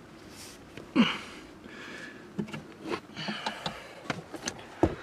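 A person breathing hard in and out in a cramped attic, with scattered small knocks and clicks and a sharper knock near the end.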